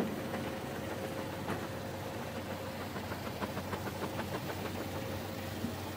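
Snack pellet production line machinery running with a steady mechanical hum. A quick run of light ticks comes through about halfway in.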